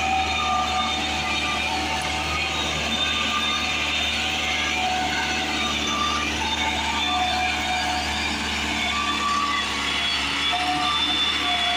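Massey Ferguson 375's Perkins diesel engine running steadily under heavy load, a deep drone with whining higher tones over it. The tractor is straining and unable to pull the loaded sugarcane trolley up the ramp on its own.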